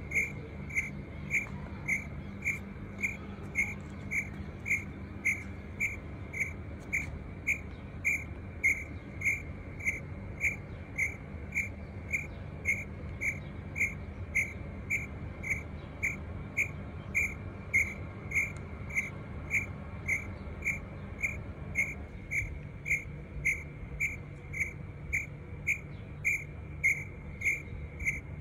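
Cricket chirping steadily, about two short chirps a second, over a low hum.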